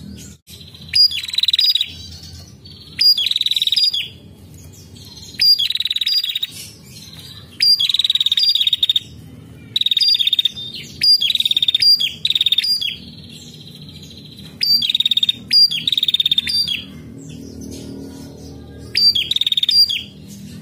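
Female prenjak, a small Indonesian warbler, calling repeatedly. Each call is a sharp high note running into a rapid buzzy trill under a second long, given in quick pairs with short pauses between them.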